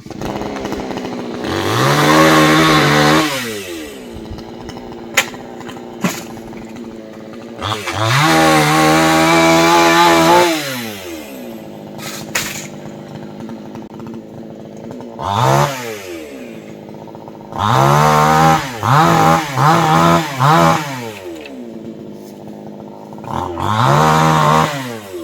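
Two-stroke chainsaw idling, then revved up again and again: a long rev of a couple of seconds, several short blips including four quick ones in a row, and one more rev near the end.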